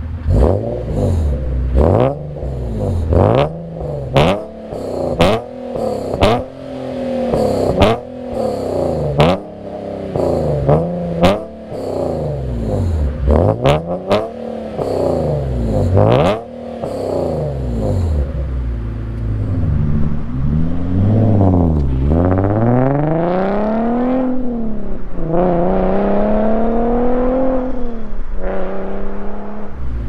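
Nissan 370Z's 3.7-litre VQ37 V6 revved through Fast Intentions long tube headers. It gives a run of quick throttle blips, many with a sharp pop, then several longer revs that climb high and drop back. Near the end it gives way to a steadier, lower engine note.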